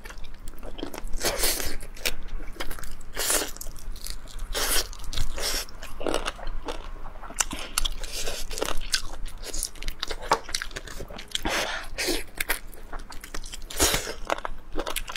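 Close-miked eating: a person biting and chewing chili-coated chicken, pulling meat off a wing, in a steady run of irregular sharp bites.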